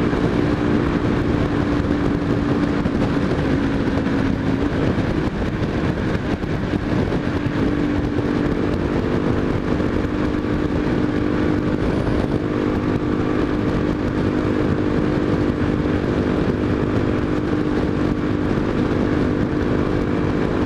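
Honda XRE 300's single-cylinder four-stroke engine running at cruising speed, with a steady rush of wind and road noise. The engine note eases off about five seconds in, then holds steady again a couple of seconds later.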